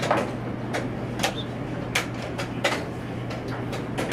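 Wooden chess pieces set down on a wooden board and a digital chess clock's buttons slapped in fast blitz play: sharp clicks about every two-thirds of a second, over a steady low hum.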